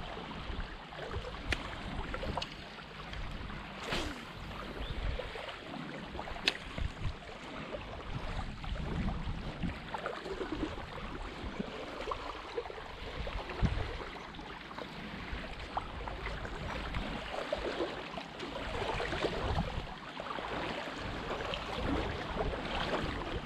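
Lake water lapping and sloshing at the shallow edge, with wind rumbling on the microphone and a few sharp clicks.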